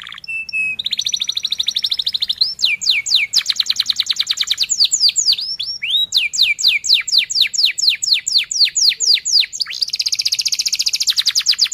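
Domestic canary singing a fast, unbroken song in rolling trills: runs of quick falling notes, several a second, alternate with very rapid rolls.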